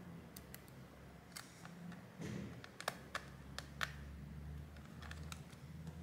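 Scattered small clicks and taps of a precision screwdriver and fingertips working on a laptop's plastic and metal internals while the cooling fan is fitted back, over a faint low steady hum.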